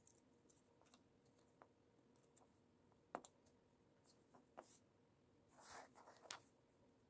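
Faint clicks and light taps of small LEGO plastic pieces being handled, pressed onto a model and set down on a cutting mat, with a short scrape a little before the end.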